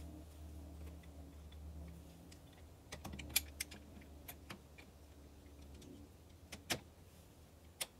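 Light metallic clicks and clinks of gears and parts being handled in the open mid-PTO gear housing of a John Deere 3033 tractor. A few sharp clicks come about three to four and a half seconds in and two more near the end, over a faint low steady hum that drops away about six seconds in.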